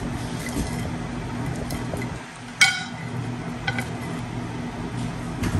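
A utensil strikes a ceramic plate with one sharp, ringing clink about halfway through, followed by a couple of lighter taps, over a steady low hum.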